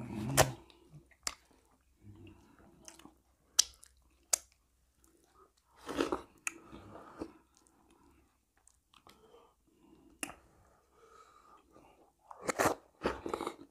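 People eating fufu with seafood okra soup: wet chewing and mouth sounds, with scattered sharp clicks and a few louder bursts about six seconds in and near the end.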